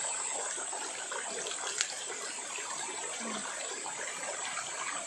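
Steady rush of a small waterfall cascading over rocks in a mountain stream, with one sharp click a little under two seconds in.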